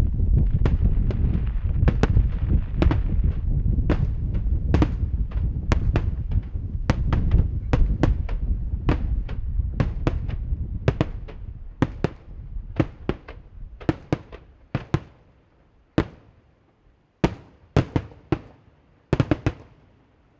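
Fireworks display: a dense barrage of booming shell bursts and crackle that thins out after about ten seconds into scattered sharp cracks and reports, the last few near the end.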